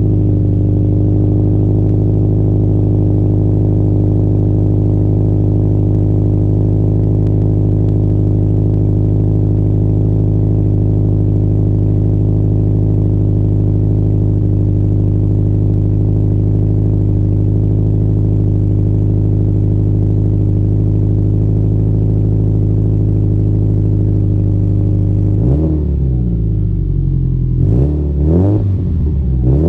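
Subaru Impreza WRX STI (GDB) turbocharged 2.0-litre boxer engine idling steadily, heard at its exhaust tailpipe. Near the end it is revved in a few quick blips, the pitch jumping up and falling back each time.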